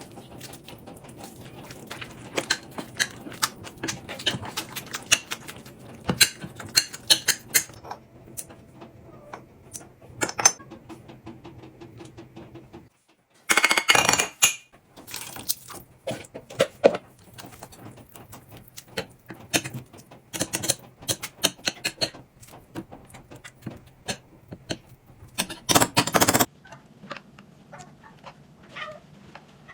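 Irregular small clicks and clinks on a cat's food bowl during feeding, with two louder, longer bursts about fourteen and twenty-six seconds in.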